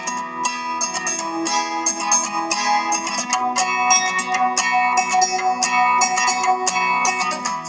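Background music: a plucked guitar playing a quick run of notes.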